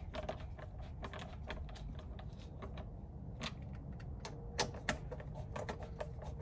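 Rapid light clicking and ticking from a hand screwdriver and the plastic wire track of an Indian Challenger saddlebag lid as screws and wiring are worked, with a few sharper knocks around the middle.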